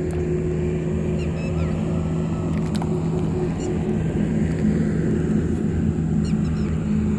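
A steady low engine drone with a constant hum, unchanging throughout, from an unseen motor. A few faint short high chirps sound over it.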